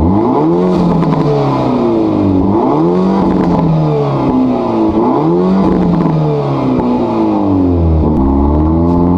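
2024 Hyundai Elantra N's turbocharged four-cylinder pulling at low revs through a titanium mid-pipe with the resonator deleted. The exhaust note climbs in pitch and drops back several times, with a deep low drone near the end.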